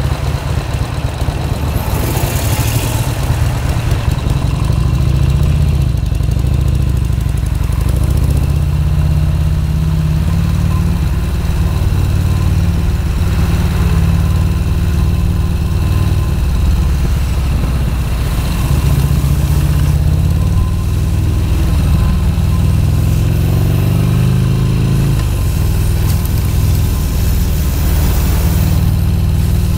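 Harley-Davidson XR1200's air-cooled V-twin engine running on the road in traffic, its pitch rising and falling with the throttle. Brief bursts of rushing hiss come near the start and again near the end.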